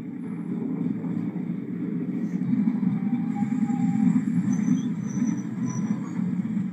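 DEMU passenger train running on the rails with a steady low rumble, heard through an open coach doorway as it nears a station. A few faint high-pitched squeals come about four and a half to six seconds in.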